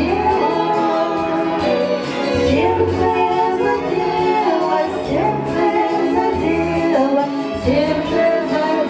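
Two women singing a Russian song as a duet, their voices in harmony on long held notes, with low instrumental accompaniment underneath.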